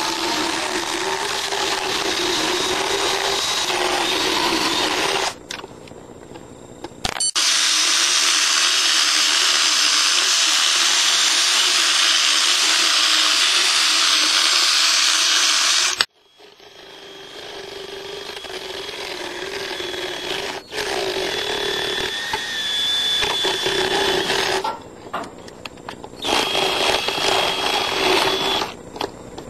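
Motorized dental float running as it grinds a horse's teeth, cutting out briefly about five seconds in and again near the end; through the middle stretch the sound turns to a louder, higher hiss.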